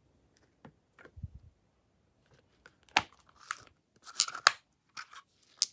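A small metal-framed clutch's clasp clicking open and nail polish bottles knocking against it as they are handled: a string of sharp clicks and taps, loudest about three seconds in and again around four and a half seconds, after a soft low thud near the start.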